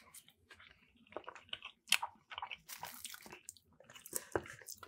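Close-up chewing of a mouthful of buffalo chicken mac and cheese, with irregular short mouth clicks and smacks.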